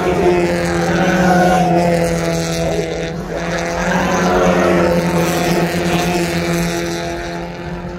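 Spec Miata race cars' four-cylinder engines running hard as the cars come through a corner one after another, their engine notes rising and falling as each goes by, over a steady low drone.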